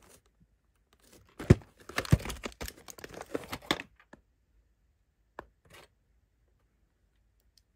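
A plastic VHS clamshell case being opened and the cassette taken out: two sharp plastic clicks as the case comes open, then a couple of seconds of scattered clicking and rustling as the tape is handled, with two faint clicks near the end.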